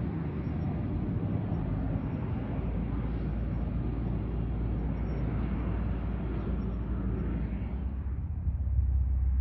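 Pilatus PC-12 NG single-engine turboprop landing and rolling out on the runway: a steady rumble of engine and propeller. About eight seconds in the sound changes abruptly to a duller, lower rumble.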